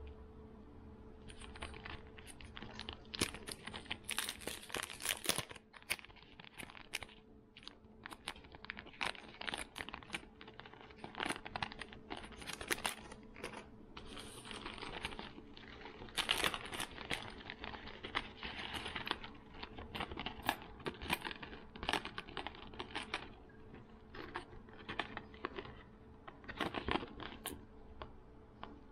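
Plastic packaging being handled: crinkling and rustling with a rapid, irregular string of small clicks and taps, over a faint steady hum.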